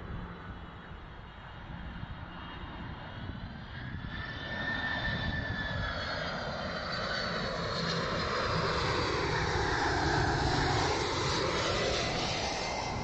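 UPS Boeing 767-300ER freighter's twin GE CF6-80C2 turbofans on landing approach. The engine noise grows louder as the jet nears, loudest about ten seconds in, with a high whine that slowly drops in pitch and a sweeping change in tone as it passes close by.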